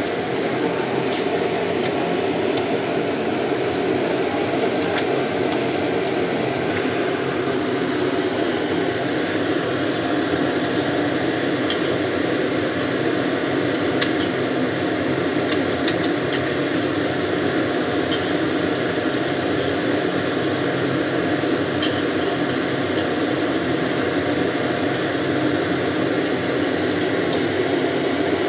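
Battered fish fillets frying in oil in a wok: a steady sizzle over a low steady hum, with a few sharp clinks of a metal spatula against the pan.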